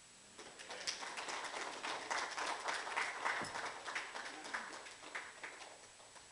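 Audience applauding. The clapping swells about half a second in, is fullest in the middle and dies away shortly before the end.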